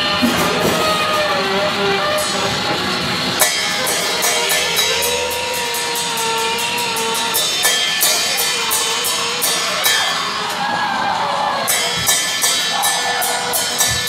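Live band music: a drum kit with frequent cymbal strikes under a saxophone playing long, held notes that bend slightly in pitch.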